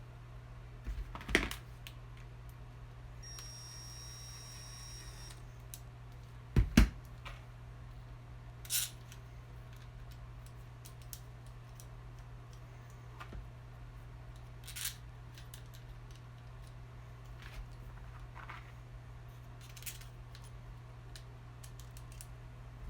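Scattered clicks and knocks of small metal parts and hand tools being handled on a workbench during motor repair work, the loudest a double knock about seven seconds in, over a steady low hum. A thin, high, steady tone sounds for about two seconds near the start.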